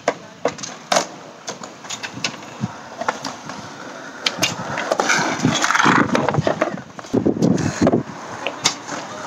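Skateboard wheels rolling over concrete, with sharp clacks and knocks of the board throughout, a louder rolling stretch in the middle and a low rumble near the end.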